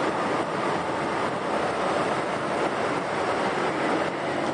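Propeller airliner engines and rushing air heard from inside the cabin as a steady, even noise.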